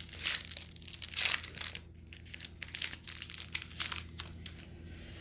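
Foil wrapper of a Pokémon card booster pack being crinkled and torn open by hand, a run of irregular crackles, loudest in the first second or so.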